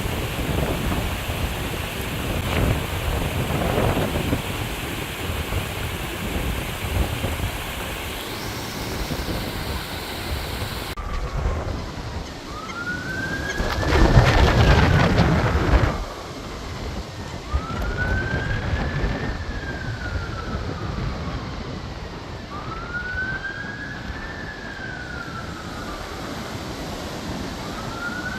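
Strong wind buffeting the microphone in gusts. After a cut about eleven seconds in, an emergency-vehicle siren wails, rising and falling about every three seconds, with a loud gust of wind hitting the microphone for a couple of seconds early in the siren.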